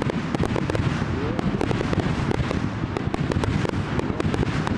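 Fireworks display going off overhead: a dense, continuous crackle of many rapid sharp pops over a steady low rumble.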